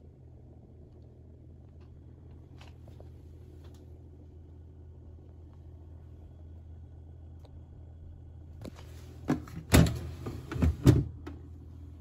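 A steady low hum, then from about nine seconds in, a quick run of about five loud clunks and knocks as a plastic freezer drawer is pulled open.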